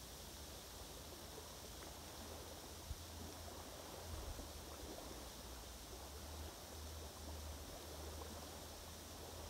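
Faint outdoor background noise: a steady hiss with a low rumble that comes and goes, like wind on the microphone, and a few faint ticks.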